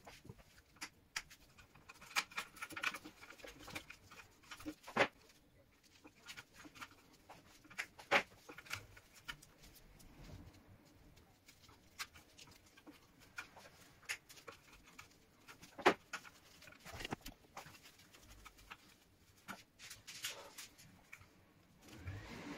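Gloved hands handling electrical wires in a plastic electrical enclosure: scattered clicks and taps with light rustling of cable and plastic, a few sharper knocks about 5, 8 and 16 seconds in.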